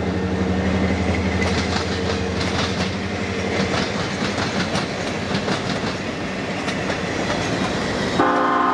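Passenger coaches rolling past at speed, their wheels clicking over the rail joints, over a low steady diesel drone that fades after about three seconds. Near the end, the train's diesel locomotive horn sounds: a loud chord of several notes held steady.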